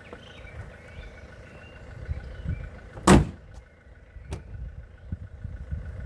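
A BMW E31's bonnet being shut: one loud thump about three seconds in, then a lighter click about a second later, over a low rumbling background.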